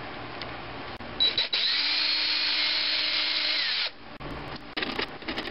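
Small electric drill with a thin twist bit drilling a hole through a thin sheet-metal plate: the motor runs at high speed with a steady whine for about three seconds, then falls in pitch as it stops. Light clicks and knocks follow near the end.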